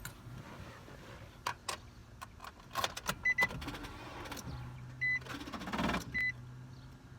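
Sounds from inside a car: several sharp clicks and clunks, three short high beeps, and a small electric motor whirring for a few seconds in the second half.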